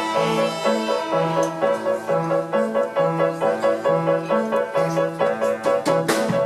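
Children's string ensemble of violins, violas and cellos playing with piano accompaniment: a steady, even rhythm of repeated notes.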